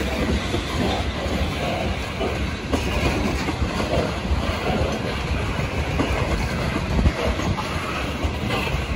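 Tank cars of a Norfolk Southern ethanol freight train rolling past close by: steady wheel-and-rail noise with a strong low rumble and one short louder knock about seven seconds in.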